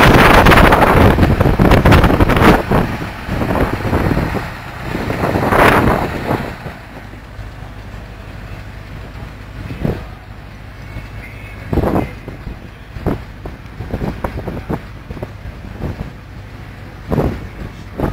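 Belt-driven threshing machine and the vintage tractor powering it running with a steady drone, under heavy wind buffeting on the microphone for the first six seconds or so. After the wind drops the machinery runs on, with a few sharp knocks as sheaves of corn are fed in.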